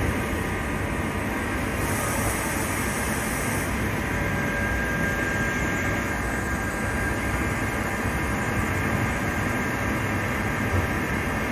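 Doosan Puma ST32G CNC lathe machining under flood coolant: a steady hiss of coolant spraying over the running machine. A faint steady whine joins about four seconds in.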